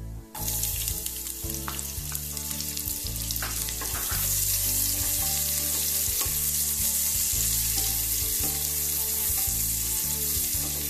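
Sliced onions hitting hot ghee in a pressure cooker start sizzling suddenly about a third of a second in. They keep frying with a steady sizzle, louder from about four seconds in, as they are stirred with a wooden spatula.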